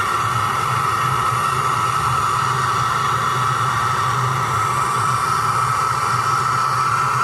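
Hand-held MAPP-gas torch burning with a steady hiss, its flame heating copper refrigerator tubing to brazing heat.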